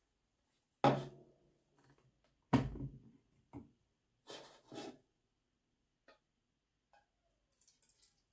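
Plastic clunks and knocks as a blender jug is handled and lifted off its motor base: two loud clunks about one and two and a half seconds in, then a few lighter knocks and small clicks. Near the end a faint trickle of liquid starts as it is poured into a plastic measuring jug.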